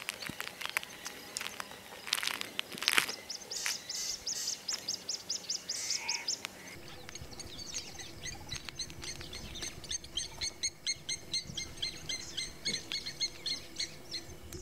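Birds chirping in quick, repeated high calls, several a second, with a few sharp knocks in the first three seconds.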